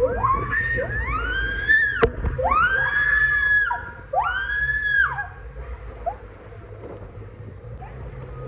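A rider screaming on the way down a water slide: about five long, high screams one after another, which stop about five seconds in. After that comes a lower rush of water.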